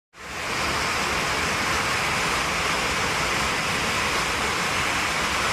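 Steady loud rush of air and noise inside an airliner cabin flying with a hole torn in the side of its fuselage.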